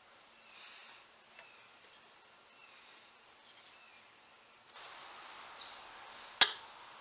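Quiet workbench with faint bird chirps in the background. A steady hiss starts about two-thirds of the way through, and a single sharp click comes near the end, the loudest sound.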